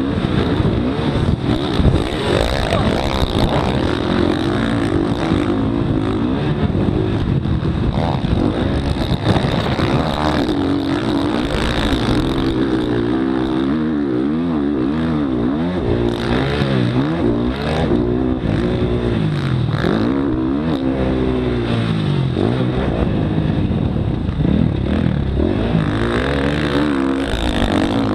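Motocross dirt bike engine heard from on board, revving up and down repeatedly through the gears as it is ridden around a dirt track, under a constant rush of noise.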